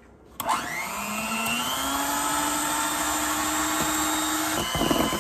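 Electric hand mixer switched on about half a second in, its motor spinning up with a rising whine and then running steadily, the beaters whipping egg yolks as sugar is gradually added. Near the end the sound turns rougher.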